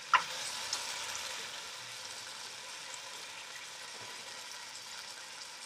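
Beef chuck roast sizzling steadily as it sears in a hot, oiled frying pan, with a short knock just after the start.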